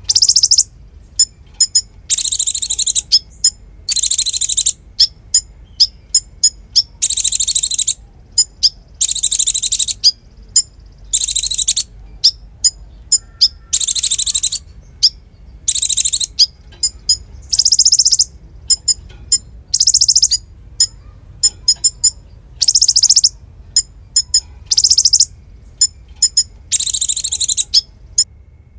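Konin songbird singing non-stop: rapid, very high-pitched bursts of song under a second long, repeating every second or two, with quick sharp chips in between.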